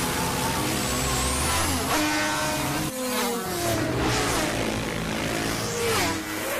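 Cartoon racing insects' buzzing wings, made to sound like engines: several pitched drones fly close by, with the pitch sliding down as they pass about three seconds in and again near the end.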